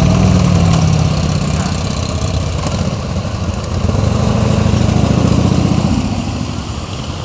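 Several motorcycle engines running at low speed in a slow parade. The low engine note swells as a bike comes close near the start, eases, then swells again from about four to six seconds in.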